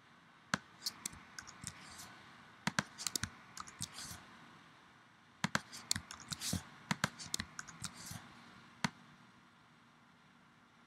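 Sharp clicks of a computer mouse and keyboard keys, irregular and in two busy spells of a few seconds each, as objects are drag-selected and deleted in drawing software.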